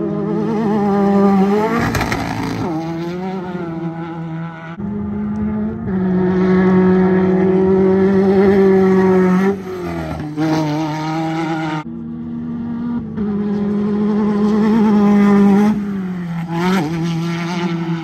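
Off-road race car engines running hard and revving as the cars pass, the pitch rising and falling. The sound changes abruptly about 5, 10 and 12 seconds in as one car gives way to the next.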